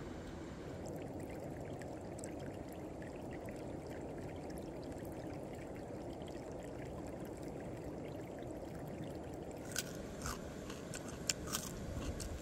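Shallow stream flowing steadily over rocks, an even rush of water. Near the end a few sharp clicks sound over it.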